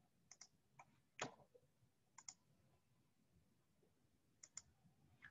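Faint computer mouse clicks, several of them in quick pairs, with a louder single click about a second in.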